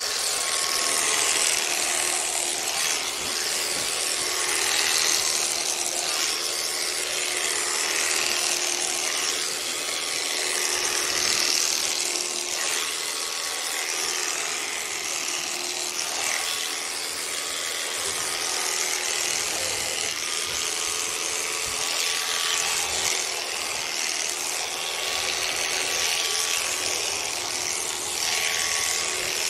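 Electric animal-shearing clippers running steadily, a motor whine with a hiss that swells and fades as the blades cut through llama fleece.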